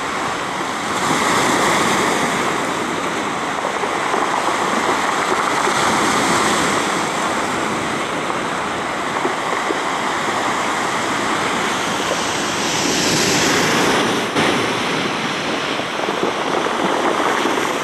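Surf washing in over a pebble beach in a continuous rush of water that swells louder with each incoming wave, a few times over.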